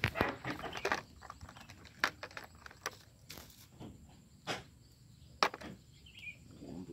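Irregular clicks and crinkling of plastic as lures are rummaged through in a plastic tackle box and bags, densest in the first second, then single sharp clicks every second or so.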